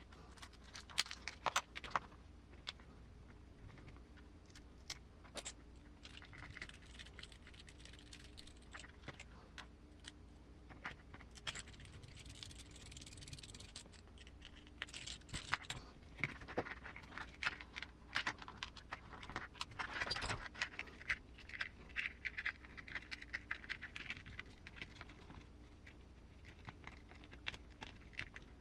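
Small plastic parts and screws of an RC car's receiver box being handled and fitted by hand: scattered clicks and taps with short spells of scratching and rubbing, over a low steady hum.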